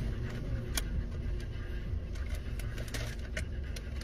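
Car engine idling, heard from inside the cabin as a steady low hum, with a few short clicks and rustles from a paper food bag being handled.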